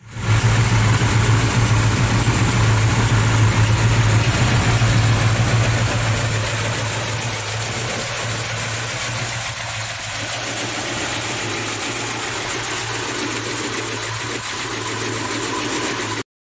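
1971 Plymouth Hemi 'Cuda's 426 Hemi V8 idling steadily, a little louder for the first six seconds, then settling slightly quieter. The sound cuts off abruptly near the end.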